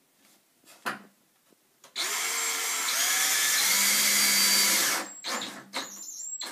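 Yellow DeWalt cordless drill running for about three seconds, driving a screw through a metal hinge into a wooden beam, its motor pitch shifting as it runs. It stops abruptly, and a few light knocks and clicks follow.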